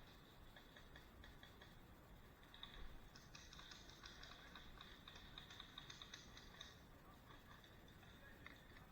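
Faint, rapid clicking, densest for a few seconds in the middle, typical of distant airsoft guns firing, over a steady high-pitched background tone.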